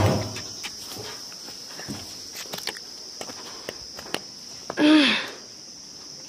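Footsteps on a stony village path, over a steady high-pitched chirring of insects. About five seconds in comes one short, loud call that falls in pitch.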